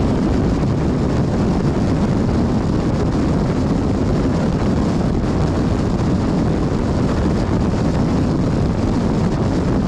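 Steady wind rush over the microphone with engine and tyre noise from a Yamaha NMAX scooter cruising at about 130 km/h.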